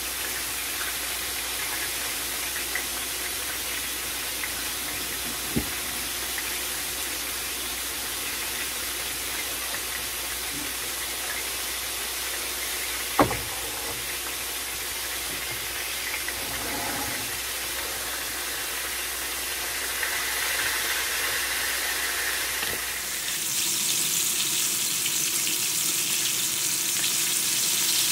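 Steady sizzle of breaded chicken breasts frying in oil in a skillet, over a low hum. About 13 seconds in there is one sharp clank of a pan on the stovetop. Near the end the sizzle turns louder and brighter, heard up close to the bubbling oil.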